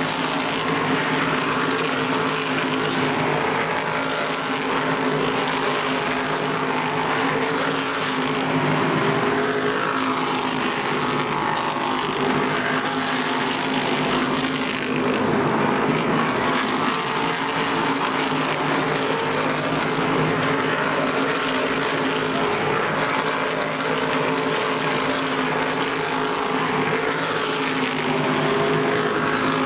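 A field of NASCAR Whelen Modified Tour race cars running on the oval, their V8 engines blending into a loud, steady drone whose pitch rises and falls as cars go by.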